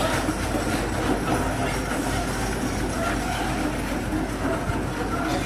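Heavy earthmoving machinery working, its diesel engine running steadily with a low rumble.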